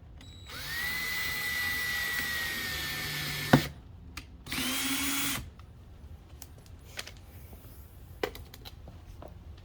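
Power drill pre-drilling a hole in plastic: a steady run of about three seconds, ending with a sharp crack as it stops, then a second short burst of about a second. Light clicks and taps follow.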